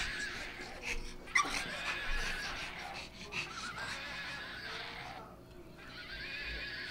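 Electronic neighing from a plush toy horse: a whinny played in several wavering bursts.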